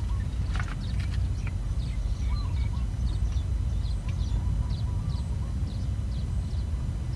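Wind rumbling on the microphone, with small birds chirping repeatedly in short, high notes and an occasional lower curling call.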